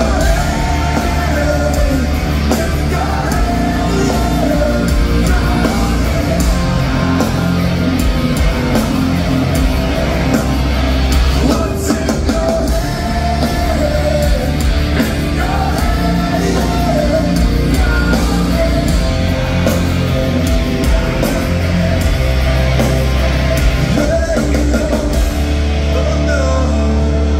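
Live heavy rock band playing at full volume, with distorted electric guitars, bass, drums and a lead singer.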